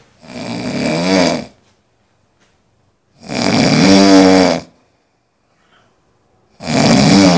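A heavyset man snoring loudly: three long snores about three seconds apart, each lasting over a second.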